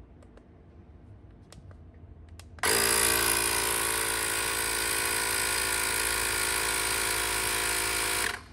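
A few faint button clicks, then a CYCPLUS A5 cordless electric tyre inflator's compressor starts suddenly about two and a half seconds in, running steadily as it pumps up a wheelbarrow tyre, and cuts off abruptly near the end.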